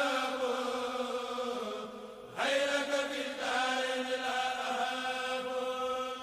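Devotional chanting in long held notes under the narration. It breaks off briefly about two seconds in and comes back on a rising note.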